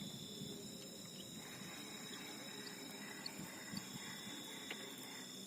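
Night insect chorus: steady high-pitched trilling at several pitches at once, with a few short clicks in the second half.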